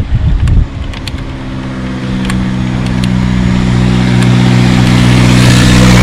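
A motor vehicle coming up from behind on the road. Its engine hum holds a steady pitch and grows louder and louder, with tyre noise rising as it closes in.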